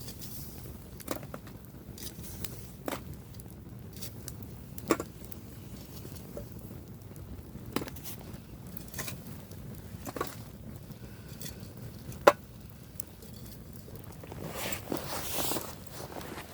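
Wood fire burning down in a pan, crackling with scattered sharp pops, one much louder pop about twelve seconds in, and a rustling swell near the end.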